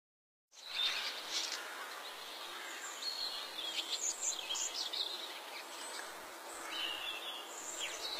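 Rural outdoor ambience starting about half a second in: several birds chirping and calling in short high notes over a steady hiss.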